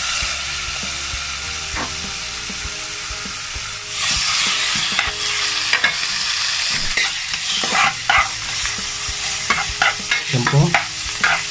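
Chicken skin and fat sizzling in hot oil in a pan as they render down for chicharon. The sizzle gets louder about four seconds in, and a utensil stirring and scraping in the pan cuts in repeatedly over the second half.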